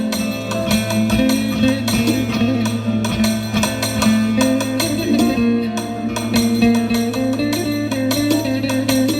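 Instrumental music: a melody on a plucked string instrument over a steady low drone, with quick, steady percussion strokes.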